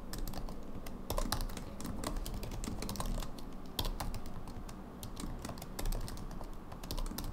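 Typing on a computer keyboard: a quick, irregular run of key clicks as a line of code is entered.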